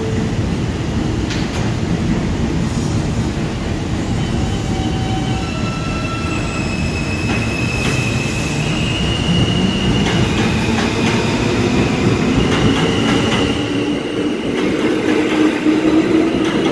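R160 subway train pulling out of the station and picking up speed: a steady rumble of wheels on rail, with the propulsion's whine stepping up in pitch as it accelerates.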